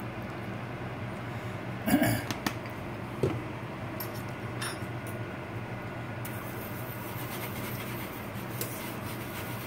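Wire whisk stirring cream gravy in a stainless steel skillet, a soft scraping that starts about six seconds in, over a steady low hum. A couple of short knocks come around two and three seconds in.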